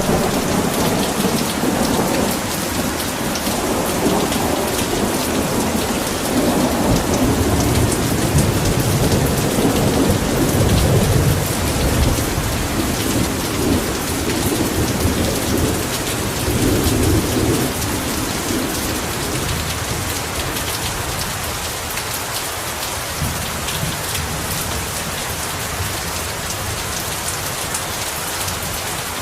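Heavy rain falling steadily, with a long rolling rumble of thunder that swells and then fades out about two-thirds of the way through, leaving only the rain.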